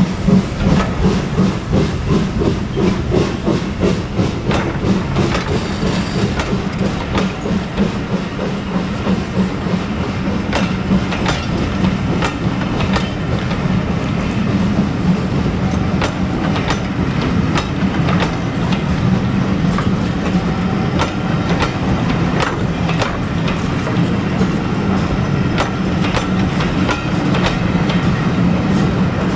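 A steam-hauled train passing. The locomotive's exhaust beats pulse about twice a second at first, then give way to the steady rumble of the coaches rolling by, with sharp clicks of wheels over rail joints.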